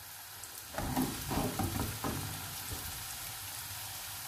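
Diced potatoes sizzling steadily as they fry in hot olive oil in a pan. There is a short stretch of louder clattering and handling of the pan from about one to two seconds in.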